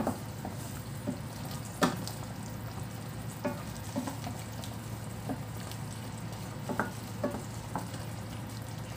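Thickened soy-ginger sauce sizzling and simmering in a nonstick frying pan as a wooden spatula stirs it and spoons it over a whole fried fish, with a few light knocks and scrapes of the spatula against the pan.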